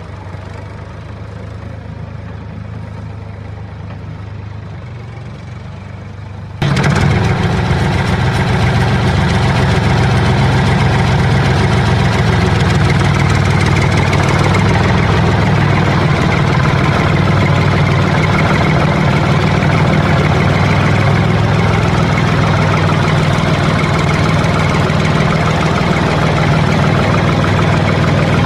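An engine running steadily at idle, low and even. It is fainter for the first six or so seconds, then becomes abruptly much louder.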